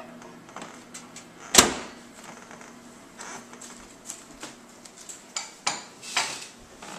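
Dishes and utensils handled in a kitchen: a sharp knock about a second and a half in, then scattered light taps and clinks, over a faint steady low hum.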